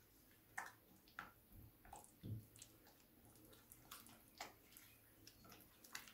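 Faint wet squelching of a thick yogurt-and-spice marinade being stirred in a glass bowl with a plastic fork, with irregular light clicks as the fork scrapes and taps the bowl.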